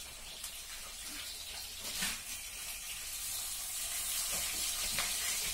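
Steady hiss of background noise that grows a little louder partway through, with a few faint, short soft sounds.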